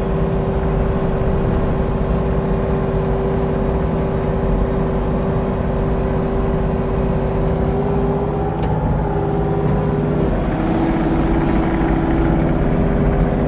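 Diesel engine of a compact earthmoving machine running steadily at working speed while pushing dirt. A higher whine joins for a couple of seconds near the ninth second, and the engine's pitch shifts slightly about ten and a half seconds in.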